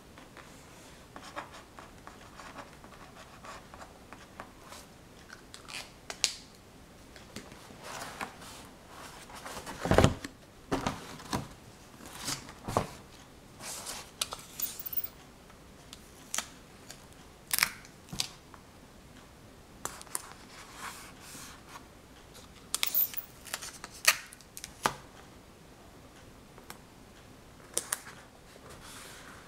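Irregular clicks, taps and light scraping from small objects being handled, with a louder knock about ten seconds in.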